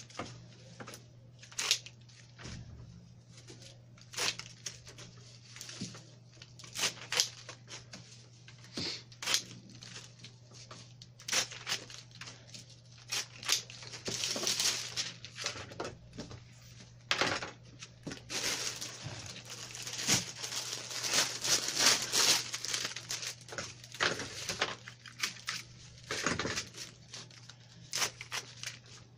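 Leaves and thorns being stripped and snipped from rose stems by hand and with a cutting tool: irregular snaps, clicks and tearing with rustling foliage, thickening into denser rustling about halfway through. A steady low hum runs underneath.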